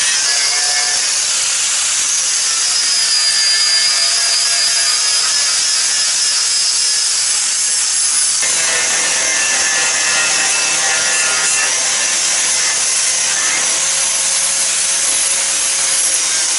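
Angle grinder grinding the steel frame rail of a 1953 Chevrolet 3100 truck: a steady, high-pitched whine and rasp, stripping the rail to bare metal where brackets are to be welded. The sound changes abruptly about halfway through and carries on.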